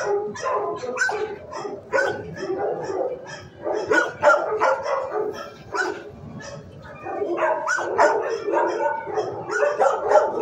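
Several dogs in a shelter kennel block barking over one another, several barks a second, easing off briefly about six seconds in.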